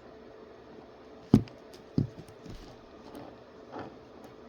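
Handling noise: two sharp knocks about half a second apart, the first the loudest, then a few faint rustles, over a faint steady hum.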